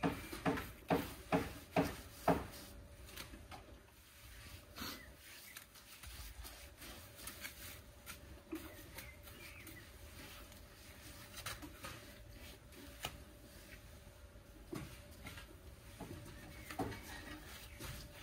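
Hand-tool work on bare ground: a quick run of sharp knocks, about two and a half a second, that stops about two seconds in, followed by scattered quieter knocks and scrapes.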